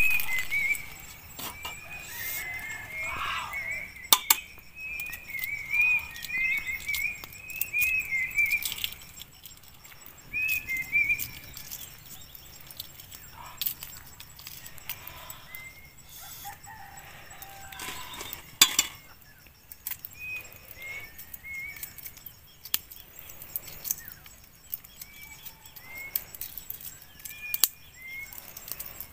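Small birds chirping, a quick run of twittering calls for the first several seconds and then scattered calls. Sharp clicks and crackles now and then from boiled eggshells being cracked and peeled by hand.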